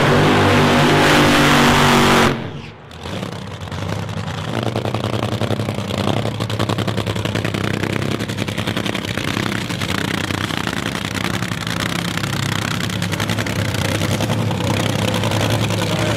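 A Top Fuel dragster's supercharged nitromethane V8 runs at full throttle and cuts off abruptly about two seconds in, then settles into a lumpy, pulsing idle.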